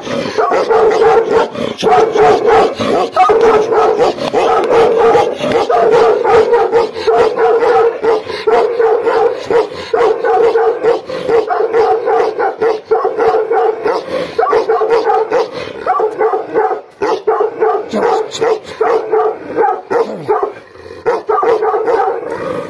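Two Bhotiya (Gaddi) dogs barking aggressively at each other in a rapid, unbroken string of barks.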